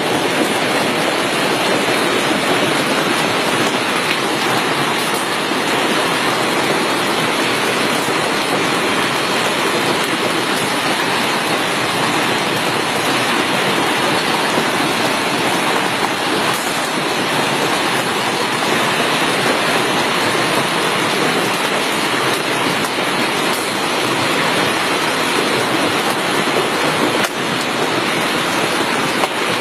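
Heavy hail and rain pelting down in a dense, steady rattle with no letup.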